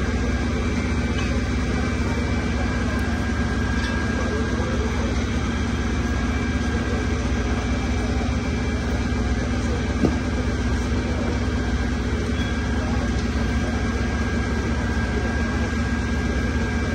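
Fire apparatus engines running steadily, a deep hum with a thin steady whine over it. A single click about ten seconds in.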